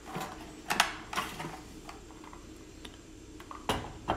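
Hard plastic clicks and a short scrape as an M18 5.0 battery is unlatched and slid off a Milwaukee M18 RADIUS site light, the sharpest click just under a second in. Near the end come two knocks as the light is set down on a glass-topped scale.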